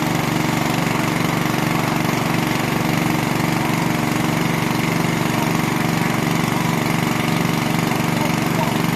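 Engine of a machine-driven well-drilling rig running steadily at a constant speed, with a fast even firing beat.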